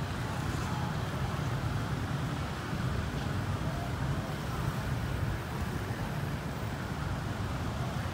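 Steady city street ambience: a low, even hum of traffic.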